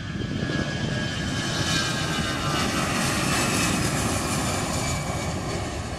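Airbus A320-214's twin CFM56-5B turbofans at take-off thrust as the jet rolls past and lifts off: a loud roar with a fan whine that falls in pitch as it passes, dropping off near the end.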